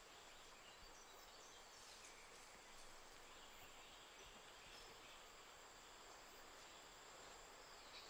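Near silence: faint rainforest background with a thin, steady, high insect whine and a few faint chirps.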